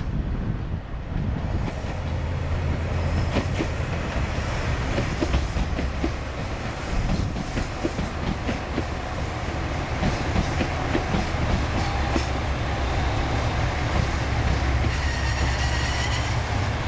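JR Shikoku 2000 series diesel multiple unit passing close by: a steady low rumble of its diesel engines with wheels clicking over rail joints and points. A faint high wheel squeal comes in near the end.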